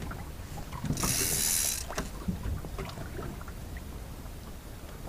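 Fishing reel giving line in a short hissing, ratcheting burst just under a second long, about a second in, as a fish pulls on the bait. Light clicks and knocks of the reel and rod being handled, over a low steady rumble of the boat and sea.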